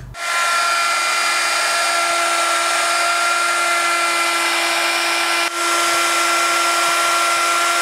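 Handheld electric router with a 1/8-inch roundover bit running at a steady high whine as it rounds over the edge of a pine board. The sound dips briefly about five and a half seconds in, then carries on.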